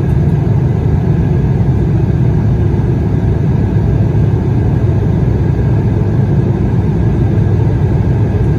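Cabin noise of an Embraer E175 airliner during the climb after takeoff: its GE CF34 turbofan engines and the rushing airflow, heard from a window seat by the wing as a loud, steady low drone.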